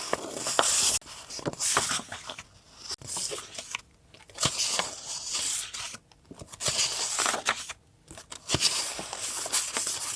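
Paper being handled and torn, rustling and crinkling in several bursts with short quiet gaps between.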